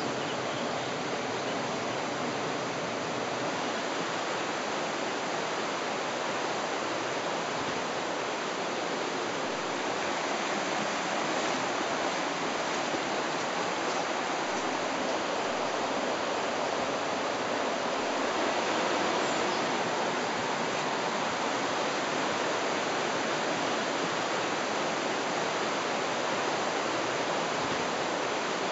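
Caraș River rushing through its gorge: a steady, even rush of flowing water.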